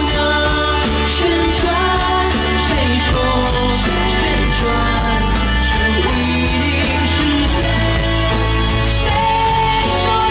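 A woman singing live into a microphone with a backing band, a steady, loud mix with heavy bass under the voice.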